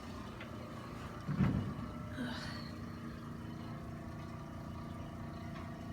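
One dull thump on a padded chiropractic treatment table about one and a half seconds in, as the patient is moved into position for the next adjustment, over a steady low mechanical hum.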